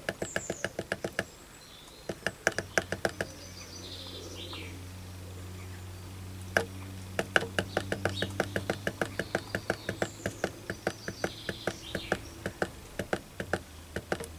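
Rapid clicking of a variable frequency drive's keypad button, pressed over and over in quick runs of about six clicks a second, each press stepping the jog frequency down. A steady low hum sits underneath from a few seconds in.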